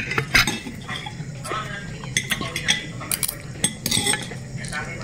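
Metal fork and spoon clinking and scraping against a ceramic bowl and plate while eating, a string of short, sharp clinks.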